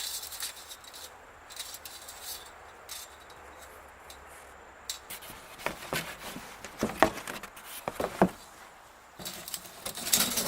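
Handling noise from a box of coiled bandsaw-mill blades being unpacked: rustling packaging with scattered light clicks and clinks, busier near the end.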